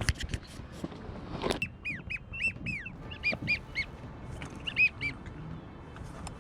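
Duck whistles: three groups of short, high, rise-and-fall whistled notes, about five, then four, then three, of the kind wigeon make. A few sharp clicks come at the start and a brief rustle about one and a half seconds in.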